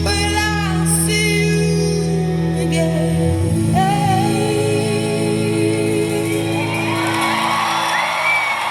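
Live concert music played through a micro hi-fi system's speakers: singing over sustained chords that ends on a long held note, as audience cheering and whoops rise near the end.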